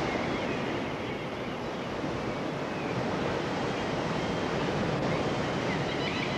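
Sea surf washing and breaking, a steady rushing noise.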